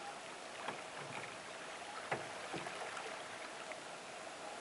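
Steady outdoor hiss with a few short, soft splashes of water, the sharpest about two seconds in.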